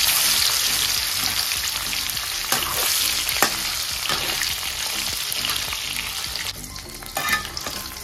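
Fish steaks sizzling in hot mustard oil in a steel kadai. The sizzle is loudest as the second piece goes in and dies down toward the end. A metal spatula taps and scrapes against the pan a few times.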